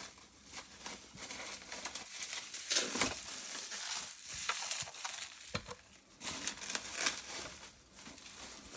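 Crinkling and rustling of packaging being handled and opened, with many small clicks and knocks.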